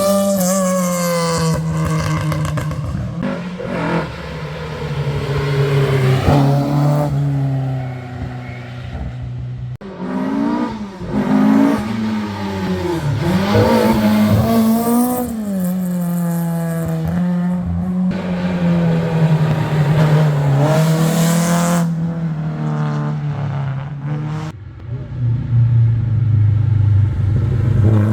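Historic rally car engines at full throttle on a stage: the engine note repeatedly climbs and drops through gear changes as cars accelerate and pass. It breaks off abruptly a few times.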